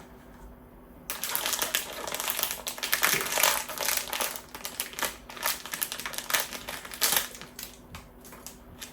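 Blind-box packaging being opened by hand: a dense, rapid crackle of crinkling wrapper and cardboard handling that starts about a second in.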